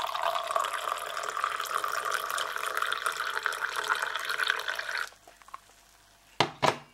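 Hot coffee poured in a steady stream into a ceramic mug, filling it, until the pour stops about five seconds in. Two short knocks follow near the end.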